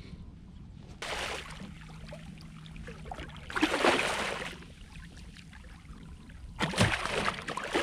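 Water splashing in three bursts of about a second each, the loudest near the middle and at the end, as a hooked redfish thrashes at the surface beside the kayak, over a low steady rumble.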